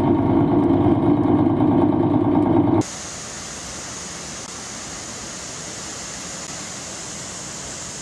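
Loud steady rumbling rush of vehicle noise and floodwater that cuts off suddenly about three seconds in, giving way to a quieter, even hiss from inside a car on a flooded street.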